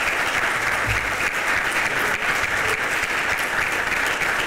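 Audience applauding steadily: dense clapping from a crowd, with a dull low bump about a second in.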